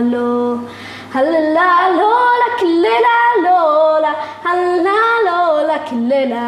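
A woman singing a melody solo, unaccompanied, with a short break about a second in.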